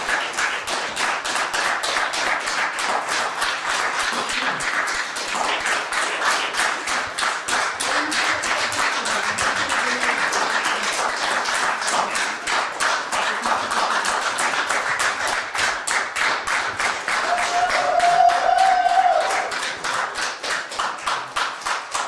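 Concert audience applauding, the claps falling together into a steady beat of about four a second. Near the end a single long, held call from the audience rises above the clapping.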